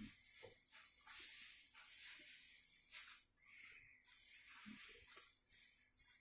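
Faint hissing noise that swells and fades irregularly every second or so, with a few soft, dull taps.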